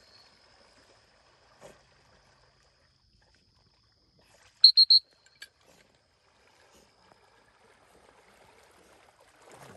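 Three quick, sharp blasts on a dog training whistle about halfway through, the multiple-toot recall that calls the swimming retriever in. A faint steady high tone runs underneath, and splashing water starts to build near the end.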